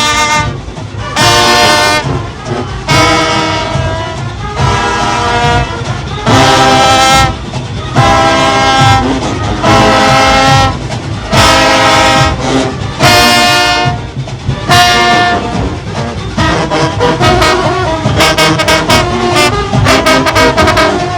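Junkanoo band music: brass horns play a riff of long blasts about every second and a half over steady drumming. In the last few seconds the horn playing turns busier, with shorter notes.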